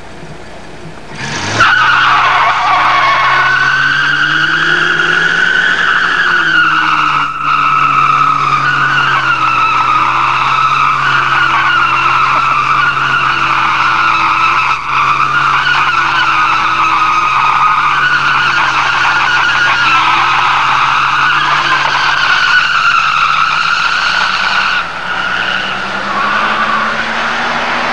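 Chrysler Newport's V8 revving hard through a long burnout, the rear tyres squealing steadily. It starts abruptly about a second and a half in. Near the end the squeal drops away and the engine climbs in pitch as the car pulls away.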